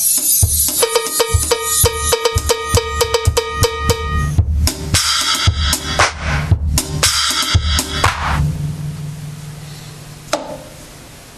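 Sonor drum kit played hard, with kick drum, snare and cymbal hits, over a repeating pitched sampler note for the first four seconds. The playing stops about eight seconds in, leaving a fading ring, with one more single hit near the end.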